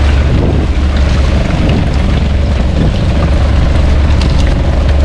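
Fishing boat's engine running steadily, a loud, constant low drone.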